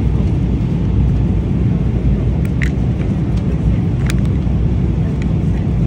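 Steady low rumble of an airliner cabin in flight, with a few light crinkles of aluminium foil as the lid of a meal tray's hot dish is peeled back.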